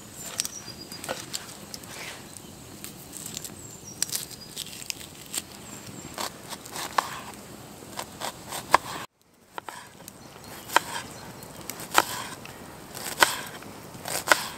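Knife slicing through an onion onto a small chopping board: irregular crunches and sharp taps of the blade on the board, over the crackle of a wood campfire. The sound cuts out briefly about two-thirds of the way through.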